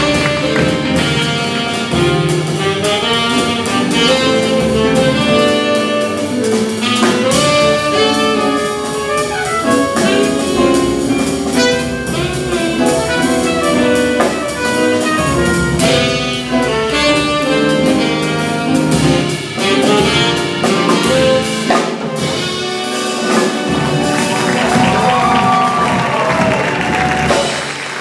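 Small jazz combo playing: tenor saxophone and trumpet carrying the melody together over piano, upright bass and drum kit with cymbals.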